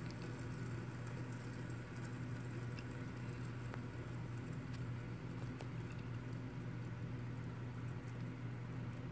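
Blue plastic fidget spinner spinning on its centre bearing on a wooden tabletop: a steady low whir with faint light ticks.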